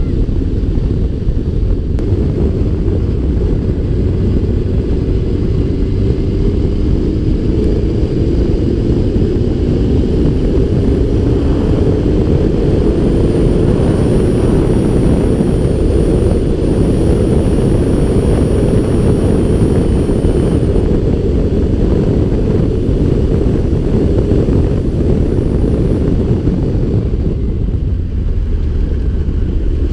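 Yamaha FZS1000 Fazer's inline-four engine running under way, with heavy wind rush over a helmet-mounted microphone. The engine note rises gradually during the first half.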